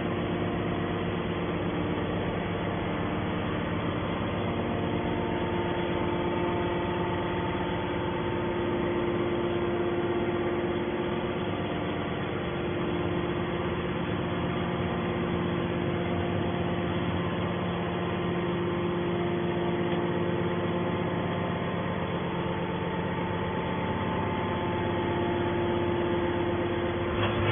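Hydraulic metal baler's power unit running: a steady machine hum with several held tones that swell and fade slightly.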